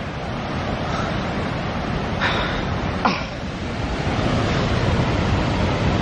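Ragged Falls waterfall and its rapids rushing steadily, a continuous wash of white water. A brief faint higher sound cuts in about two seconds in and again about three seconds in.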